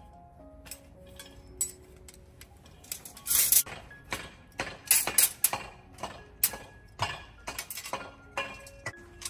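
Steel rebar column cage being tied with wire by hand: irregular metallic clinks and taps of a tying hook and pliers against the bars, the loudest cluster about three and a half seconds in and another about five seconds in.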